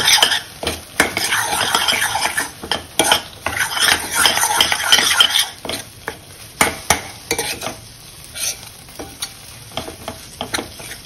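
Steel spoon stirring and scraping hot roasted besan and ghee around a stainless steel kadhai, with a light sizzle from the hot mixture as a spoonful of milk makes the besan puff up. The scraping is dense for about the first half, then thins to occasional clicks of spoon on pan.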